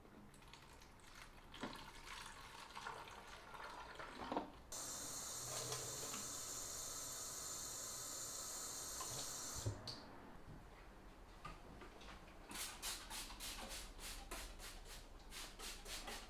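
Tap water running steadily for about five seconds, switched on and off abruptly, with small handling clicks before it. Near the end comes a quick run of short, sharp strokes, about four a second.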